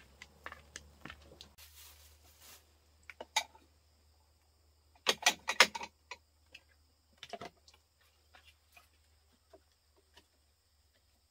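Washed ceramic bowls clinking and clacking as they are set down and stacked on a wooden shelf rack, with a quick cluster of sharp clacks about five seconds in. A short hiss comes about two seconds in.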